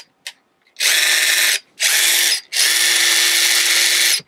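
Ridgid 18 V subcompact brushless impact driver running free with no bit and no load, in three trigger pulls: a steady whir of about a second, a short half-second one, then a longer one of about a second and a half. The tool is working on its freshly fitted battery.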